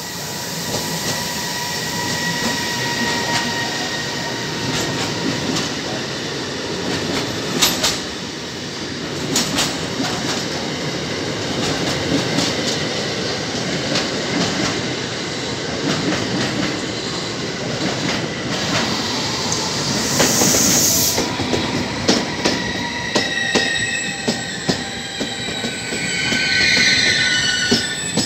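Container freight train hauled by a Bombardier Traxx E494 electric locomotive passing at speed: a steady rumble of wheels on rail, with many clicks from wheels over rail joints. There is a steady high whine in the first few seconds, a short hiss about two-thirds of the way through, and high wheel squealing near the end.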